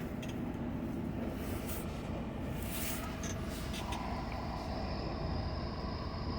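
Semi-truck diesel engine running with a steady low rumble while the tractor is manoeuvred at an angle. A steady high whine joins in about four seconds in.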